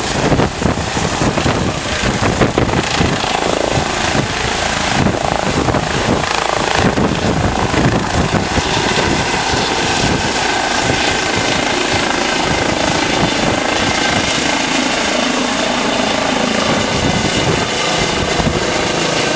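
Eurocopter EC135 air-ambulance helicopter lifting off and climbing away: turbine whine and rotor chop with a steady high whistle, the low rotor beat thinning out about halfway through as it gains height.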